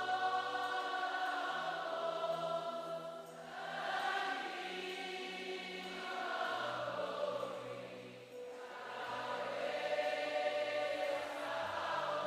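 Women of a congregation singing a slow worship chant together in long held phrases, over low sustained instrumental notes.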